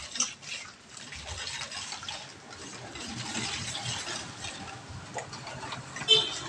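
Wire whisk beating a thin, watery bread-dough liquid with chopped cooked onion in a stainless steel bowl: continuous sloshing and swishing, with a sharp metallic clink about six seconds in.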